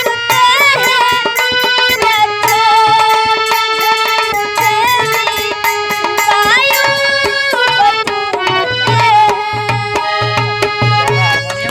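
Indian folk music: a sustained melody line that wavers and slides between notes, played over steady hand-drum strokes.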